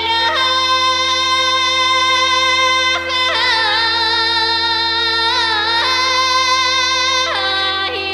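Background music: a slow melody of long held notes with vibrato over a steady drone note, changing pitch a few times.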